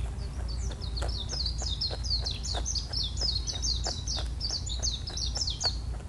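A small songbird singing a long run of quick, high chirping notes that stops just before the end, over a steady low rumble and faint regular clicks.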